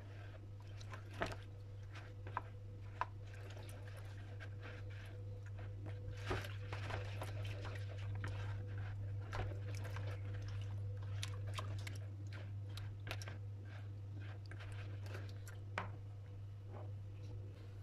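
Silicone spatula stirring yeast water in a plastic bowl: wet swishing with irregular small clicks and knocks of the spatula against the bowl, busiest in the middle, over a steady low hum.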